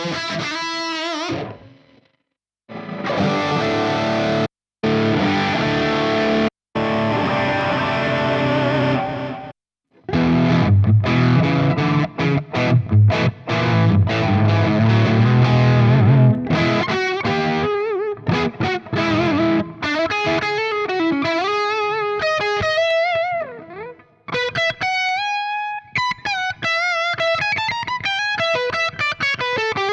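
Distorted electric guitar played through a Fractal Audio FM9 amp modeler preset. It starts with chord stabs broken by abrupt stops, moves to heavy low riffing about ten seconds in, and ends on a single-note lead line with vibrato.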